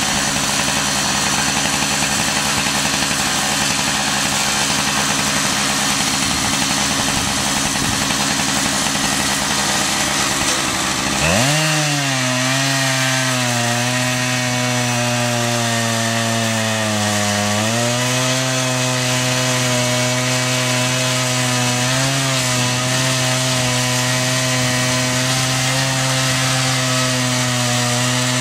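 Chainsaw on a mobile chainsaw sawmill idling steadily, then revving up to full throttle about eleven seconds in and ripping lengthwise through a cedar log. The engine note sags under load as the chain bites, then holds steady through the cut.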